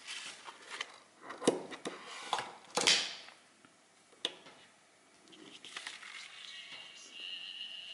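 Paper sheet with a copper-tape coil being handled and flexed, giving irregular crackles and sharp clicks as a disc magnet is moved against it. Faint music from the paper speaker comes through near the end.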